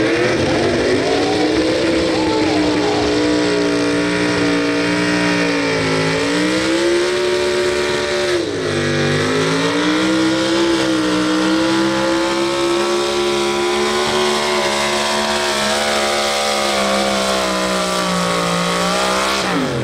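Pull truck engine run hard under load as the Chevrolet pickup drags the weight-transfer sled. The pitch climbs at the start and holds high, sags briefly about eight seconds in and recovers, then falls away as the engine shuts down at the end of the pull.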